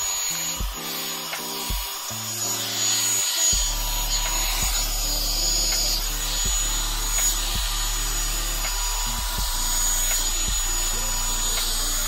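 Revlon One Step hot-air brush (blow-dryer brush) running, a steady rushing hiss with a thin whine. Background music with a bass line and a slow, steady beat plays under it.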